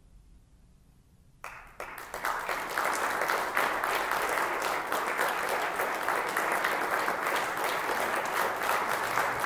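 About a second and a half of near silence, then an audience breaks into applause that builds within a second to steady clapping.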